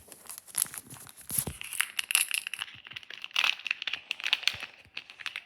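Foil wrapper of a Pokémon trading-card booster pack being torn open and crinkled by hand: a dense run of irregular crackles and rustles.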